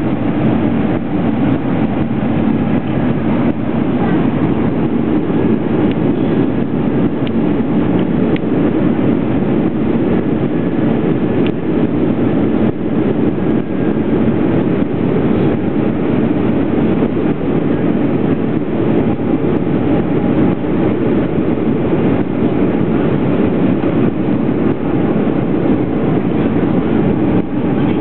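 Steady cabin noise of an Airbus airliner on final approach: the turbofan engines and the rush of air over the fuselage, heard from a window seat as a constant low roar.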